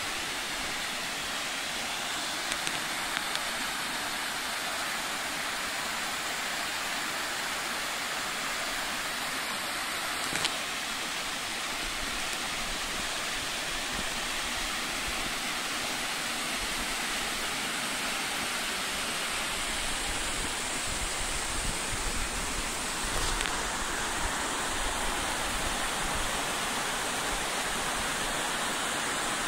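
Steady rushing of a waterfall and stream, with a few light knocks scattered through it.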